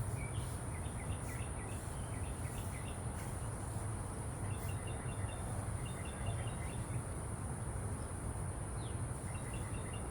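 Steady high-pitched insect drone from crickets or similar insects, with small birds chirping in short quick series, over a low steady rumble.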